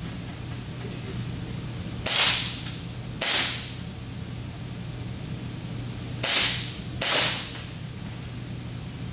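CO2-powered non-blowback airsoft pistol firing four shots in two pairs, each pair about a second apart, every shot a short sharp burst of gas.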